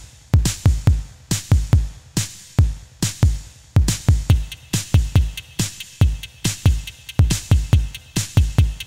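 Background music: an electronic beat with a deep, evenly repeating kick drum and sharp percussion hits.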